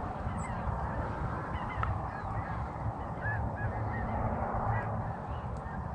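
Distant flock of geese honking: many faint, scattered calls over steady background noise.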